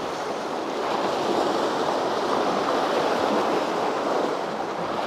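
Steady rush of sea surf washing against a rocky shore, mixed with strong wind.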